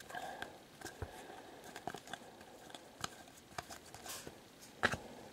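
Glossy trading cards being slid through a stack by hand: soft rustling and light clicks of card against card, with a couple of sharper ticks near the end.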